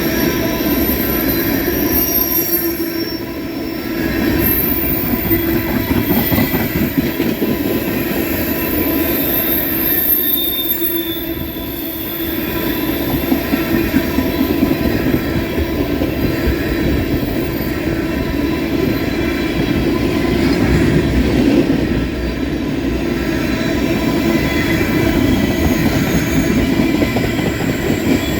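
Empty ethanol tank cars of a freight train rolling steadily past on steel rails, a continuous rumble with high wheel squeal.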